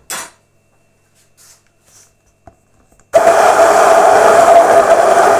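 An immersion hand blender switches on suddenly about three seconds in and runs at a steady pitch with a strong hum, whipping milk, oil and vinegar into mayonnaise. Before it, only a faint click or two.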